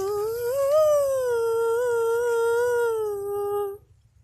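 A woman singing one long held note at the end of a sung Telugu line. The note slides up about a second in, wavers gently, then stops suddenly near the end.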